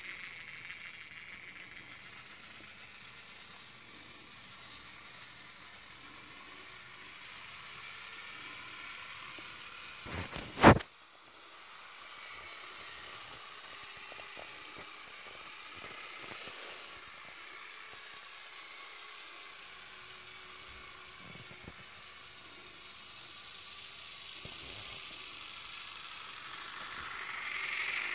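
Jouef model diesel locomotive running on its track with a train of goods wagons, its freshly serviced electric motor whirring steadily with the wheels clattering over the rails, getting louder near the end as it passes close by. One sharp knock about ten seconds in.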